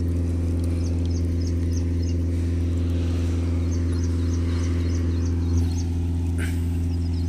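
Steady low engine or motor hum, unchanging throughout, with a faint high chirp repeating a couple of times a second over it.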